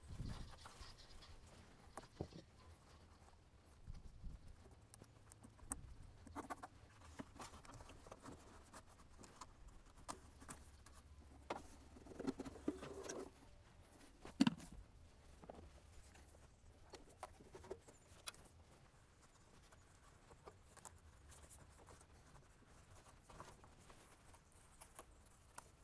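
Faint scattered clicks, scrapes and rustles of pliers on hose clamps and zip ties, and of hands pulling the plastic coolant overflow tank and its rubber hoses free, with a sharper knock about halfway through.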